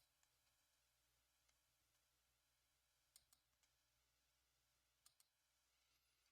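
Near silence: faint room tone with a few faint, sharp clicks, about three seconds in and again about five seconds in.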